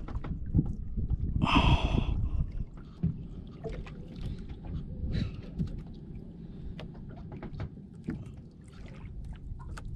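Small outrigger fishing boat at sea: a low rumble of wind and water with scattered knocks as a freshly landed fish is handled on the deck. A short loud hissing rush comes about one and a half seconds in.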